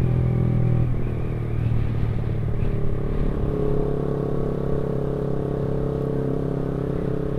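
Honda CB150R's single-cylinder engine running at a steady speed while the bike is ridden, with road noise underneath.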